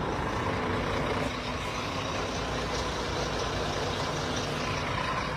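Heavy truck engine running steadily at idle.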